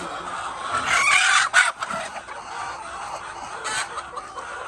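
Chickens clucking in a poultry flock, with a louder call of about a second, about a second in.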